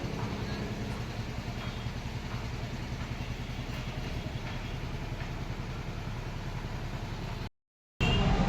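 An engine running steadily at idle, a low, even rumble. It cuts off suddenly about seven and a half seconds in.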